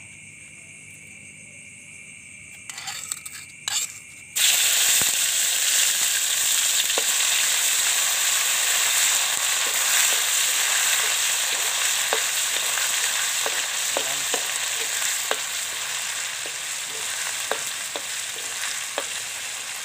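Food hits hot oil in a wok about four seconds in and fries with a loud, steady sizzle, stirred with a wooden spatula, with scattered sharp clicks through it. Before that, a quieter steady hiss.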